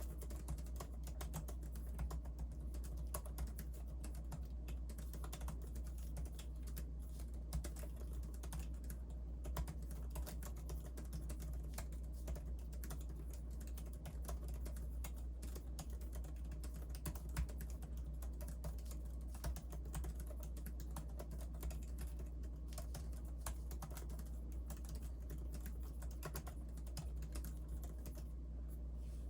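Typing on the built-in scissor-switch keyboard of a 14-inch MacBook Pro: a continuous run of soft, quick keystroke clicks on a very quiet keyboard, over a steady low hum.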